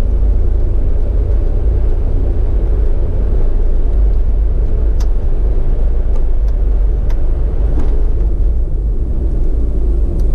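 Steady low rumble of a car driving through a road tunnel, engine and tyre noise, with a few faint clicks around the middle.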